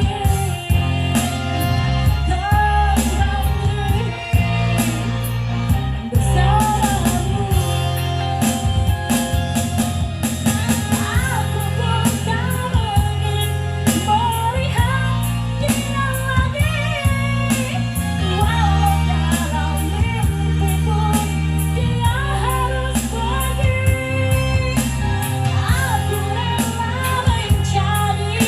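A woman singing a melody over backing music with a steady beat.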